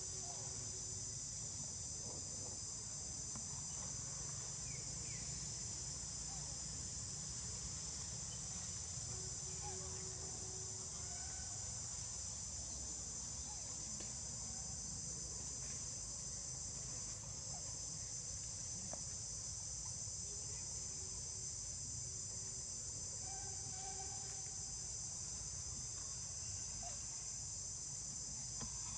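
Steady, high-pitched chorus of insects, droning without a break.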